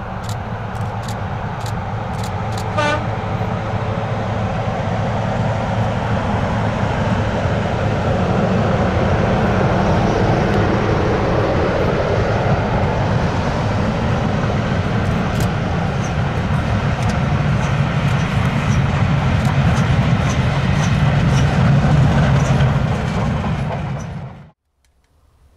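A heritage train running past and drawing closer, with a steady heavy rumble and regular clicks of wheels over rail joints. There is a brief toot about three seconds in. The sound is loudest near the end, then cuts off suddenly.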